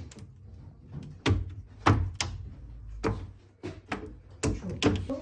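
Wooden honeycomb frames knocking against the metal cassettes and rim of a hand-cranked honey extractor as they are handled, a run of sharp knocks and clacks.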